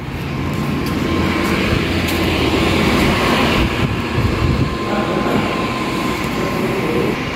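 Steady rumbling air-conditioning noise of a large restaurant hall, with a faint steady hum. It swells up as the glass entrance door opens and then holds.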